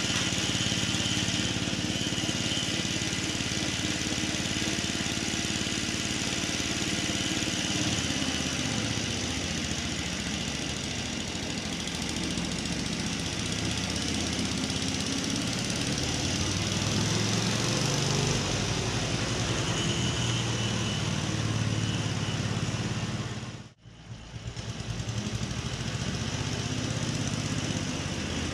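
Ransomes Marquis mower's petrol engine running steadily while it warms up after a choked start. About three-quarters of the way through, the sound drops away for a moment and then comes back.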